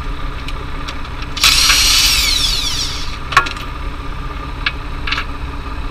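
Cordless impact wrench run once for about a second and a half on a wheel bolt, its whine falling in pitch as it slows. Afterward come a few sharp clinks of steel nuts and bolts being handled.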